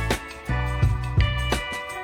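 Background music with a steady beat: instruments over regular drum hits.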